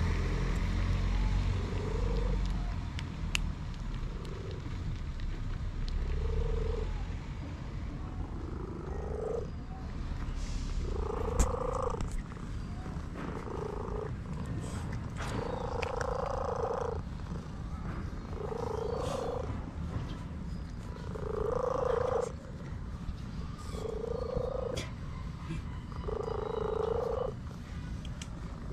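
Domestic cat purring with a low steady rumble, over which it gives a series of drawn-out meows about a second long each, getting louder from about a third of the way in.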